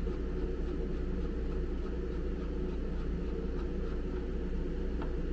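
Steady low mechanical hum, with a few faint clicks of a metal screwdriver against the plastic fan housing.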